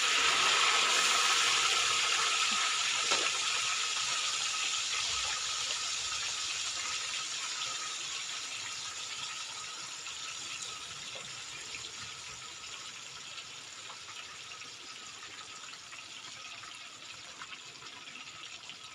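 Tofu frying in hot oil: a dense, steady sizzle, loudest at first and slowly dying down.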